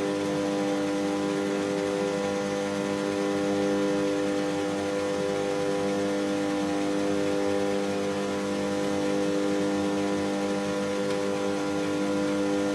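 Stand-up tanning booths running: a steady electrical hum made of several fixed tones, with the whir of cooling fans.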